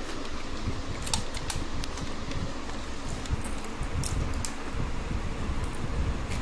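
A steady mechanical whirring hum with a few light clicks and taps.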